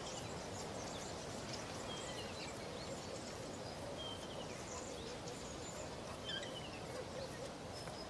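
Open savanna ambience: a steady hiss of background noise with faint, brief bird chirps scattered through it, and a faint high ticking repeating about two or three times a second.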